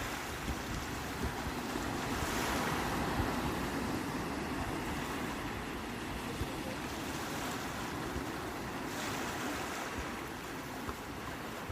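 Sea waves breaking and washing in, swelling about two seconds in and again about seven to nine seconds in, over a low rumble.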